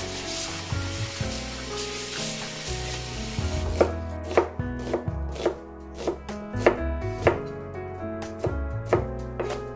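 Tap water running into a glass bowl while perilla leaves are swished by hand. From about four seconds in, a knife slices an onion on a wooden cutting board, with crisp, evenly spaced strikes a little under two a second.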